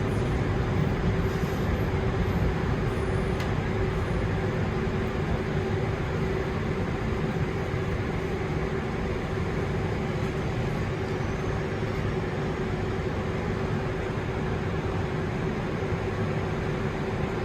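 London Underground Northern line 1995 Stock train heard from inside the carriage: a steady rumble with a constant motor hum, easing slightly in loudness.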